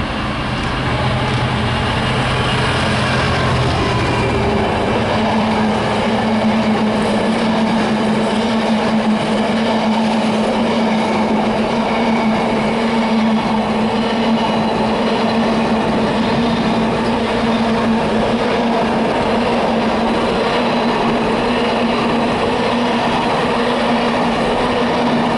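Freightliner Class 66 diesel locomotive 66594 passing at speed, its two-stroke V12 engine heard for the first few seconds, then a long freight train's wagons rolling by with a steady rumble of wheels on rail, some clickety-clack and a held hum.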